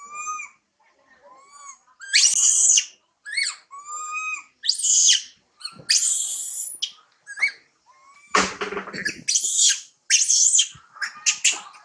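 A baby long-tailed macaque screaming and crying over and over: high-pitched screeches alternate with shorter, clearer whimpering cries, with brief pauses between them. It is the distress crying of an infant wanting to nurse. About eight seconds in there is a short rustling scrape.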